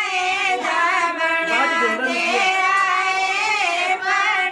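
Women singing a Himachali Pahari wedding folk song together. The voices hold long, wavering sung notes.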